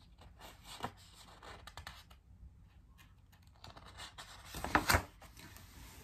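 Paper rustling as a picture book's page is handled and turned, with a small tick about a second in and the loudest rustle near the end.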